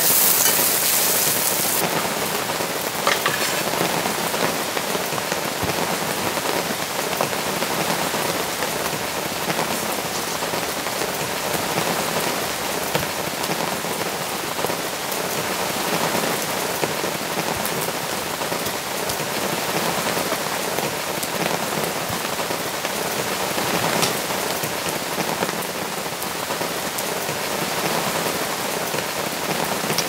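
Steady rain falling, with scattered individual drops striking a surface.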